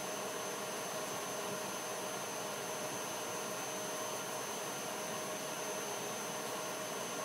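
Steady whooshing fan noise with a few faint steady hums on top, unchanging throughout, typical of a kitchen ventilation or range-hood fan running.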